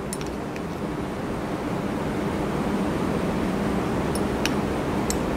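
Steady room background noise, a low hum with hiss, broken by a few faint light clicks near the start and again about four to five seconds in.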